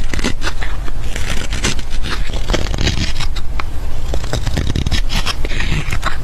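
Repeated scraping with many small knocks and clicks over a steady low rumble.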